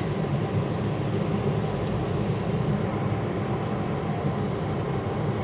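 Steady low mechanical hum, with one faint click about two seconds in.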